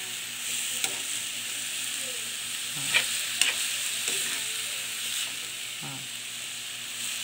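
Bean sprouts sizzling as they stir-fry in a frying pan, with a metal spoon scraping and knocking against the pan now and then as they are turned.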